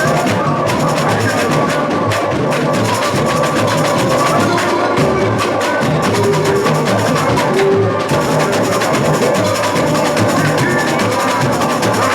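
Samba-school bateria, a large drum and percussion section, playing a steady samba groove at full volume.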